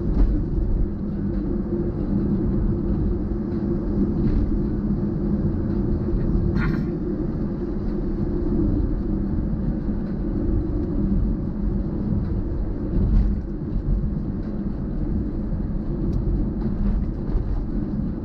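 Steady low rumble of a vehicle being driven along a road, with engine and road noise. A short high squeak comes about seven seconds in.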